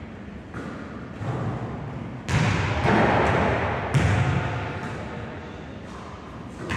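Basketball bouncing on a hardwood gym floor: several separate thuds, each with a long echo in the hall, the loudest about two and four seconds in.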